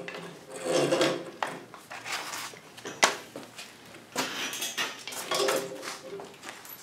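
Garage door opener's toothed rubber drive belt being pulled off its roll and dragged along the rail and concrete floor: irregular rubbing and knocking, with a sharp click about three seconds in.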